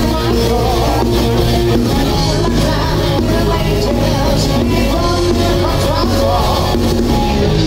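A live rock band playing: electric guitar, bass guitar and drum kit, with a lead singer singing over them.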